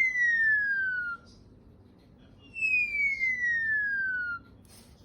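Falling whistle tone sounding twice, each sliding steadily down in pitch for nearly two seconds. The first is already sounding at the start and stops about a second in; the second begins about two and a half seconds in.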